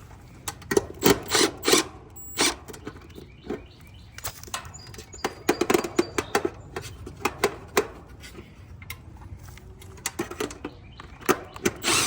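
Irregular clicks, knocks and rattles of parts and objects being handled and rummaged through, in uneven clusters, the loudest near the end.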